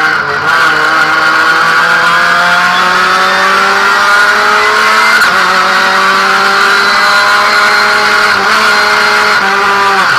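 Race car engine heard from inside the cockpit, running at full throttle with its pitch climbing steadily through the gears, with an upshift about five seconds in. The engine note falls away abruptly at the very end.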